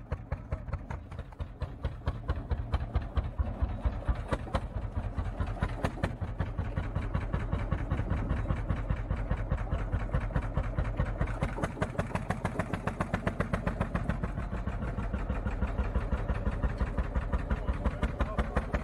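An engine running slowly and evenly, its firing beats coming about five a second.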